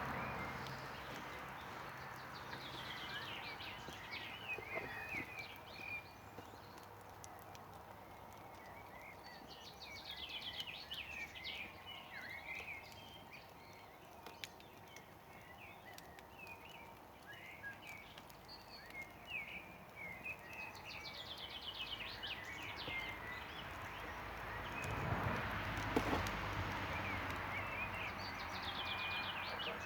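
Birds singing, one repeating a short trill that runs down in pitch every few seconds, over the soft crackle and occasional sharp pops of a wood campfire. A low rumble swells about 25 seconds in.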